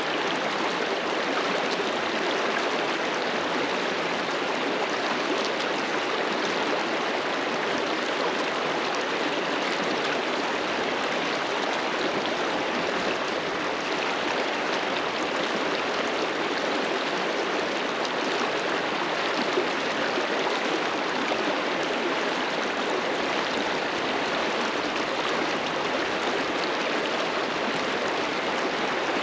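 Mountain river flowing over rocks: a steady rushing of water, constant in level.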